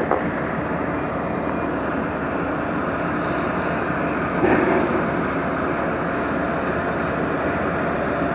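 Steady mechanical drone of a ferry's engines, even throughout, with a faint hum in it. There is a brief louder swell about halfway through.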